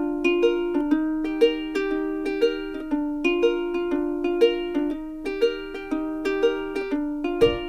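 Background music: a light instrumental tune of plucked-string notes in a steady, even rhythm, with a low bass part coming in near the end.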